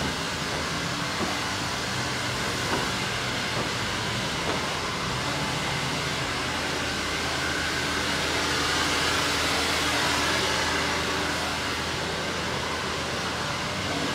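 Steady hissing and humming background noise that swells a little about eight to ten seconds in.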